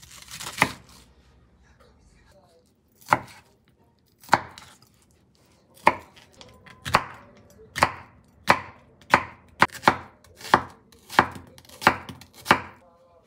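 Knife chopping on a cutting board: single sharp cuts, a few seconds apart at first, then quickening to one every half second or so.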